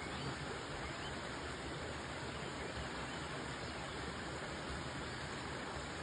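A small rocky stream rushing steadily over stones.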